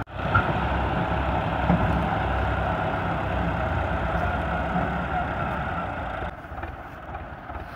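Diesel tractor engines running steadily, then quieter from about six seconds in.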